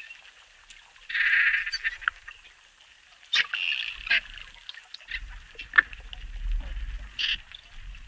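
Amazon river dolphins (botos) calling: short buzzing bursts of pulsed sound and scattered clicks, with a couple of quick falling chirps, over a low rumble that sets in about halfway through.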